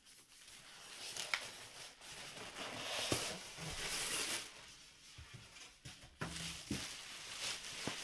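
Packaging being handled: cardboard sliding and thin plastic wrap rustling and crinkling as a boxed set is pulled out of its outer enclosure, with a few light knocks of cardboard against cardboard. The rustling is busiest in the first half.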